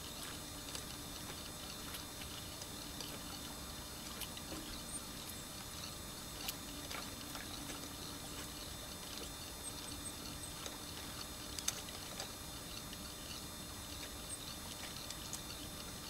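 Steady wash of flowing river water, with a few faint clicks.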